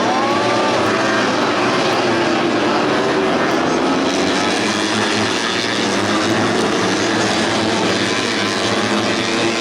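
Racing underbone motorcycles with 150 cc four-stroke engines running at high revs, a steady, dense drone of several engines together. Right at the start one engine's pitch curves up and back down as it passes.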